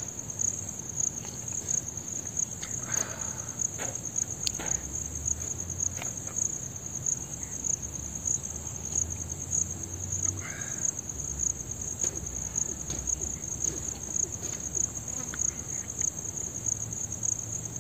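Crickets chirring in one unbroken high-pitched drone.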